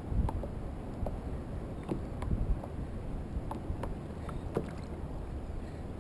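Water sloshing and splashing around the hull of a Vibe Skipjack 90 sit-on-top kayak as it is paddled through small surf, over a steady low rumble, with scattered sharp drips and splash ticks.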